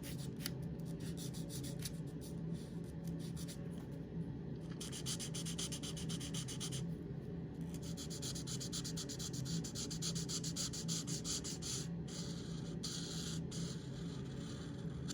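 Felt-tip marker scratching across paper in rapid strokes, with a couple of short pauses, over a steady low hum.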